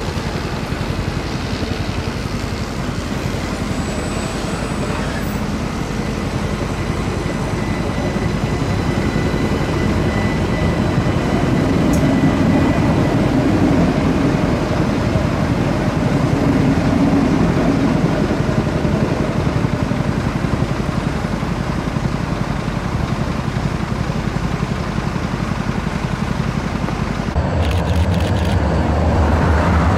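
Stadler Citylink tram-train pulling past close by: a steady rumble of wheels and running gear on the track, with a thin high tone over it for the first several seconds. About 27 s in, the sound cuts to a heavier low rumble.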